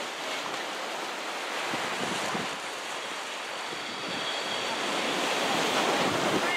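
Small sea waves breaking and washing up a stony beach, swelling to a louder wash near the end, with some wind on the microphone.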